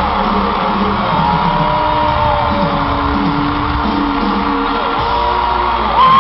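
Amplified live pop music in an arena with the crowd screaming and whooping over it; near the end a louder, high-pitched scream rises sharply.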